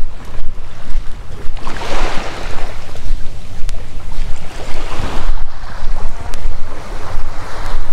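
Wind buffeting the microphone with a constant low rumble, and small waves washing onto the sand, swelling in hiss about every two to three seconds.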